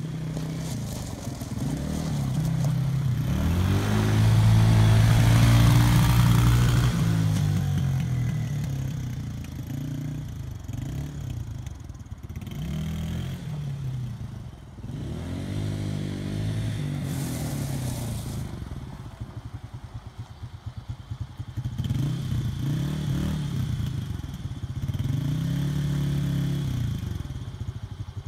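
Small youth ATV engine revving up and easing off over and over as it is ridden, its note rising and falling several times, loudest a few seconds in.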